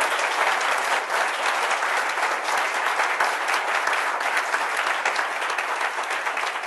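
Audience applauding, a dense steady clapping that eases off a little near the end.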